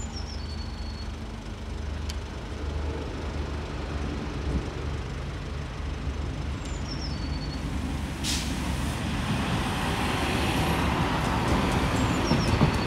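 Siemens RegioSprinter diesel railcar with a steady low hum, a short sharp burst of air about eight seconds in, then its noise growing louder. A small bird gives a short falling chirp three times.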